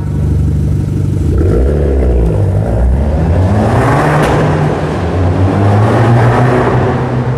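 Fiat 500 Abarth's turbocharged 1.4-litre four-cylinder through a titanium exhaust, revving and pulling away under acceleration, echoing off the walls of a concrete tunnel. The revs rise and fall briefly early on, and it is loudest about four seconds in.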